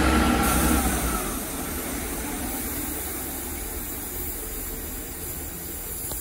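Passenger trains at a station platform: a train's engine drone is loud for about the first second, then drops away into a steady, quieter rumble as another diesel multiple unit approaches along the platform.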